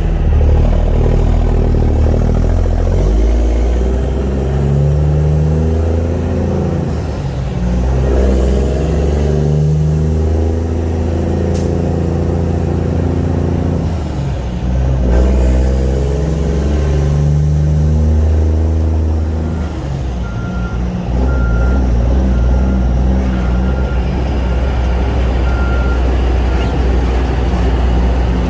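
Cummins heavy-truck diesel engine running loud and steady, its note dropping and rising again several times as it pulls. A repeated high-pitched beep sounds over it for several seconds in the second half.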